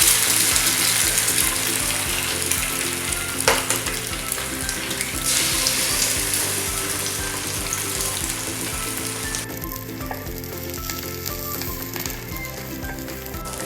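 Two eggs frying in hot olive oil in a pan: a steady sizzle that eases off noticeably in the last few seconds. There is a single sharp tap about three and a half seconds in.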